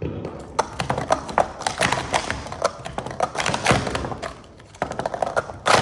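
Rapid clattering of plastic sport-stacking cups being stacked up and down in a fast timed run, a quick irregular stream of clacks. Near the end a louder slap as the hands hit the touch pad of the Speed Stacks timer to stop it.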